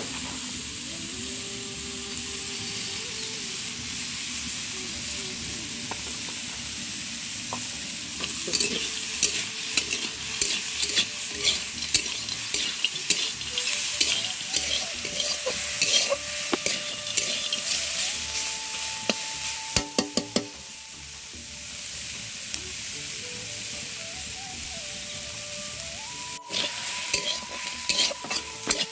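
Amaranth greens sizzling in a black kadhai (wok) over a wood fire, with a steady frying hiss. A metal spatula scrapes and clatters against the pan in a long spell of stirring through the middle, then again near the end.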